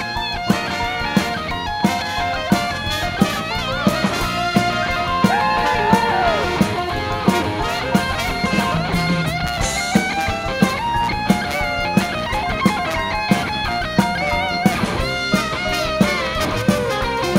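Rock and roll band music: electric guitar over a drum kit playing a steady beat.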